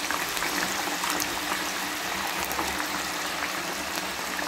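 Raw potato sticks deep-frying in hot oil in a wok just after going in: a steady sizzle full of fine crackles as the oil bubbles hard around them.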